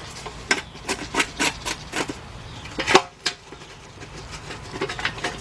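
Light clicks and taps, a few a second, with one louder knock about three seconds in: a steel transmission pan and its bolts being handled and set into place on the transmission case.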